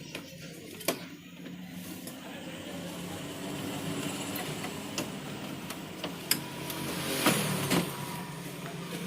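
Plastic printer casing parts being handled and fitted together: scattered sharp clicks and knocks, with a cluster near the end, over a steady low hum.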